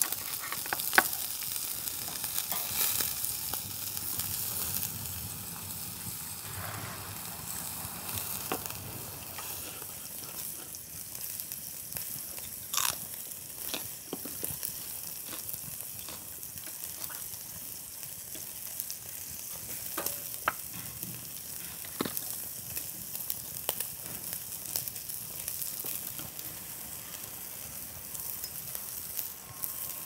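Meat sizzling on the grate of a small tabletop grill, a steady hiss with a few sharp pops and clicks scattered through it.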